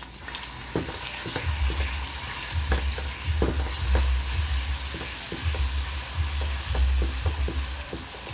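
Curry paste sizzling and frying in hot oil in a metal pot while a metal spoon stirs and breaks it up, with frequent sharp scrapes and taps of the spoon against the pot. This is the curry paste being fried in oil before potato or water is added.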